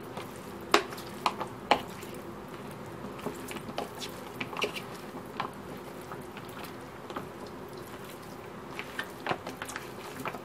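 Hand rubbing ginger-garlic paste into raw chicken wings in a plastic box: wet squishing of the meat, with scattered clicks and small knocks as the wings shift against the plastic.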